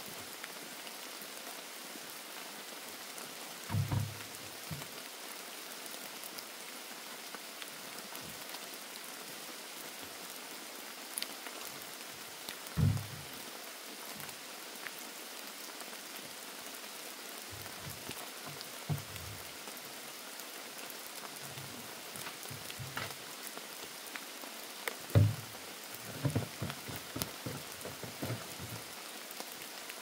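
Steady rain falling, an even hiss, with a few dull low thumps scattered through it, several of them near the end.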